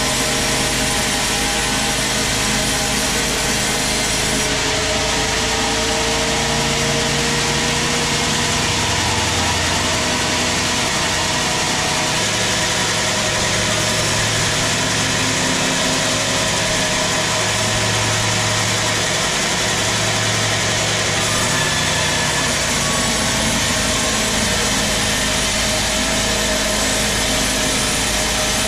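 Large sawmill band saw running steadily as it cuts a long teak log into a wide slab: a constant loud machine drone with the hiss of the blade and sawdust.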